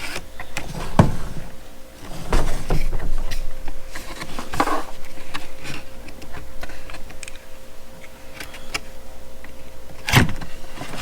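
Packaging tape on a box being cut and pulled, with scraping and several sharp knocks as the box is handled.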